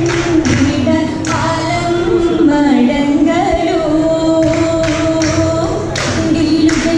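Oppana: female voices singing a Mappila song in unison without instruments, with the dancers' hand claps keeping time at about two a second. The claps thin out in the middle and come back about four and a half seconds in.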